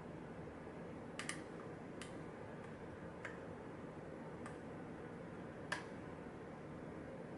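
A lock pick working the pins of a pin-tumbler lock, giving faint, scattered sharp clicks, about six in all, the loudest a little before the end.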